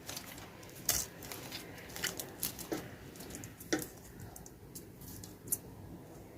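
Clear slime packed with polystyrene foam beads being kneaded and squished by hand, giving irregular sticky crackles and clicks: crunchy slime being mixed.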